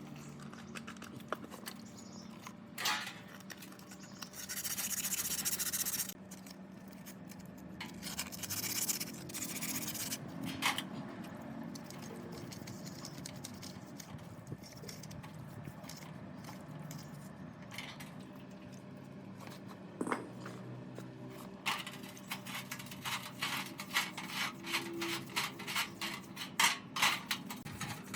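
Hand work on metal parts: scattered scrapes and taps, short stretches of hissing, and a quick series of rasping strokes over the last few seconds.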